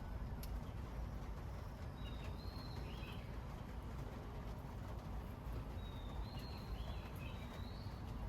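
Bird calls in two short chirping bouts, one about two seconds in and a longer one near the end, over a steady low outdoor rumble.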